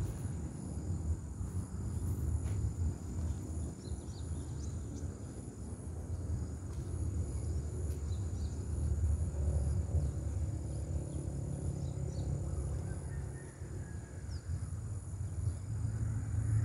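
Outdoor ambience: a steady low rumble, a thin high insect whine with a pulsing trill above it, and a few faint bird chirps.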